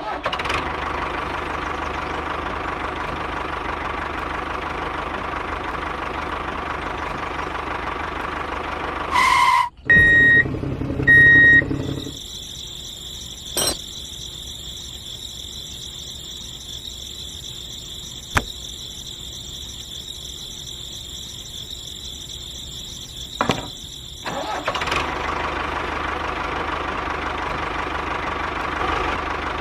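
A small motor running steadily. From about 12 to 25 seconds it gives way to a different, higher-pitched steady whine, with two short beep-like tones just before the change.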